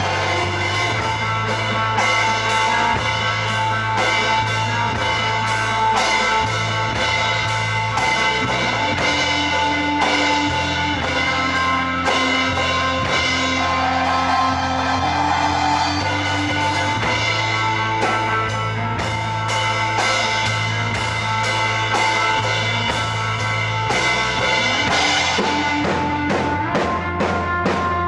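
Live instrumental noise rock from electric guitars and a drum kit: sustained droning guitar notes over steady drumming, with the low note changing about every eight seconds.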